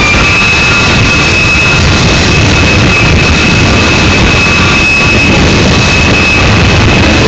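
Union Pacific manifest freight train rolling past: a loud, steady rumble with a thin, steady high-pitched whine running through it.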